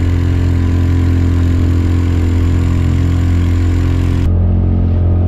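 Small boat motor running steadily as a fishing kayak cruises over choppy water, a low even hum with water rushing along the hull. About four seconds in, the upper hiss drops away suddenly.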